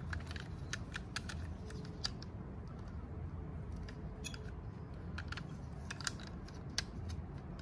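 Light, irregular clicks and taps of a small plastic toy Batmobile being handled and turned over in the hand, over low background noise.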